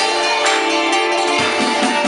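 Greek dance music with a steady beat, loud, with the audience clapping along in time.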